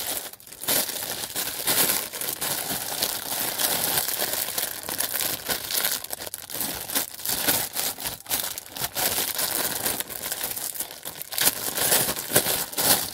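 Packaging crinkling and crackling continuously as a parcel is unwrapped by hand.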